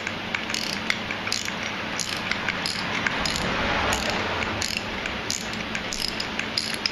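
Hand socket ratchet clicking in a series of short strokes, about one every half second, as it unscrews the already broken-loose damper rod of a motorcycle fork.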